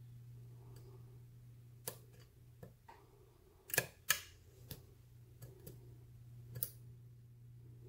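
A lock pick working the pins of a brass pin-tumbler padlock under light tension: irregular small clicks and taps, with two louder clicks close together about four seconds in. These are the clicks of the pin stacks (spool pins) binding, setting or dropping back as the lock is single-pin picked.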